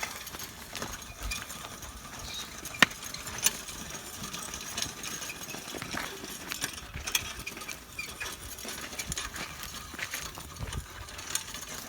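Cattle pulling a plough through a field: scattered clicks, crunches and rustles, with a sharp knock about three seconds in and another soon after.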